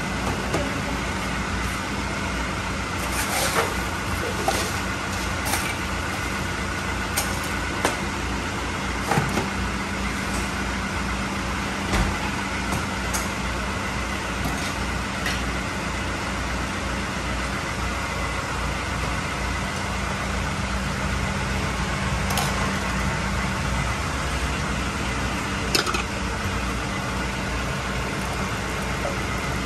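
Stainless-steel mugs and pots clinking now and then against a steel counter, over a steady low rumble.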